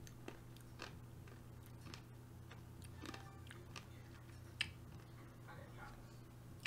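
Faint, scattered computer-mouse clicks, with one sharper click about four and a half seconds in, over a steady low hum.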